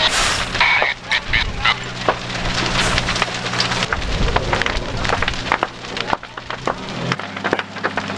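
Fully involved structure fire crackling and popping, with many irregular sharp cracks from the burning wood-frame garage. A steady low hum runs underneath and drops in pitch about seven seconds in.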